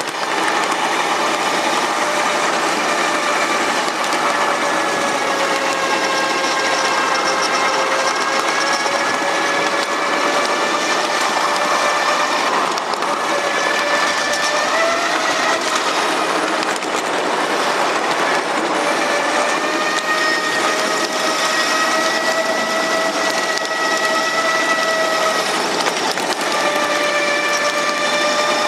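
A 7.5-inch gauge ride-on box cab locomotive running along its track: a steady mechanical running noise with a whine that wavers slightly in pitch and fades out for a few seconds around the middle.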